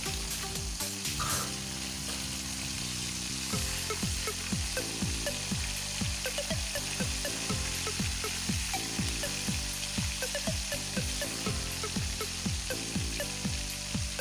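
Coated chicken pieces deep-frying in hot oil in a wok: a steady sizzle and crackle as they turn golden. A few seconds in, a low rhythmic beat of about two thumps a second comes in underneath.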